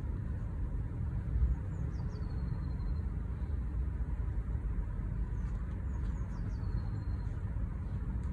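Steady low outdoor rumble. Twice, a faint high bird call sounds: quick downward chirps that settle into a short held whistle.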